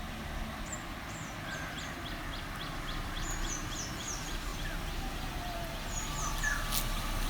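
Small birds chirping: runs of short, high, falling notes repeated in quick series, over a low steady rumble.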